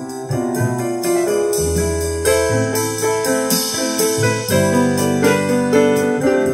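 Jazz recording: piano playing a quick run of notes over deep, held bass notes.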